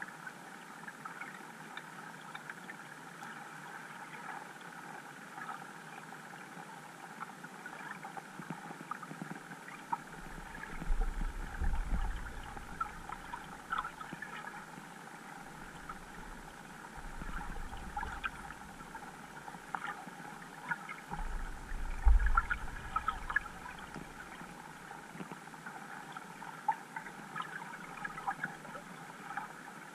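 Underwater ambience picked up by a GoPro camera in its waterproof housing: a steady muffled hiss scattered with small ticks. Low rumbling thumps come in about a third of the way through and again about two-thirds through, the second the loudest.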